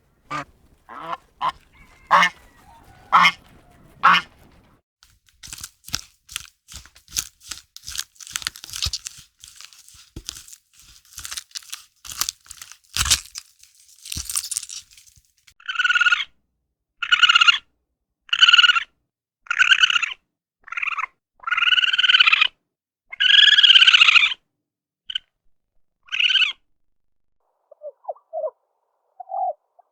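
Waterfowl calling: a few separate calls, then a quick run of chatter, then a series of loud calls about a second or so apart.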